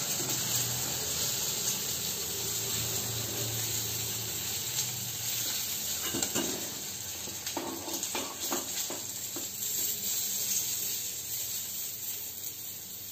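Fish pieces sizzling in hot oil in a kadai, fried until red and crisp. From about six seconds in come a few light clinks and scrapes of a metal spatula against the pan and a steel bowl as the pieces are lifted out.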